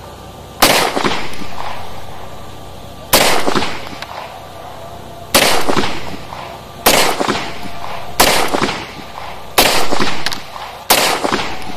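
Seven shots from a Beretta 92FS 9mm pistol, fired singly at an uneven pace, one every one and a half to two and a half seconds, each trailing off over about a second. The pistol fires every round of cheap, low-quality ammunition without a stoppage.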